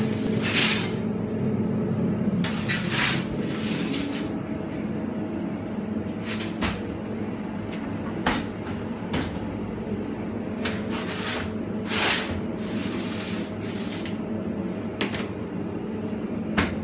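Long metal bagel boards scraping and sliding over the shelves of a commercial deck oven, about a dozen short scrapes with a sharp knock near the end, over the steady hum of bakery machinery.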